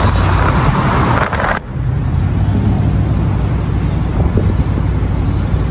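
Road noise from inside a moving car in city traffic: a loud rushing hiss that cuts off abruptly about a second and a half in, leaving a steady low rumble.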